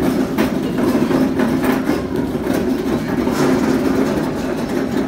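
Steel lumber cart loaded with wood boards rolling on a concrete floor: a steady rumble from its casters, with light rattling from the frame and load.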